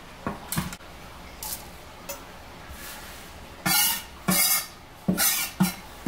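Short bursts of rustling and clatter from ingredients and containers being handled on the counter. There are a few light ones at first, then four louder ones in the second half, each about a third of a second long.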